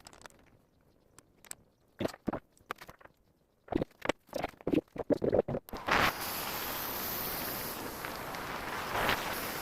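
Light clicks and knocks of small parts and tools being handled and set down. About six seconds in, a shop power tool starts and runs steadily with a hiss.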